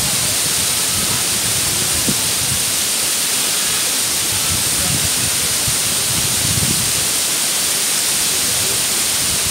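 The Mumlava waterfall pouring over rock ledges into its pool: a loud, steady rushing of falling water.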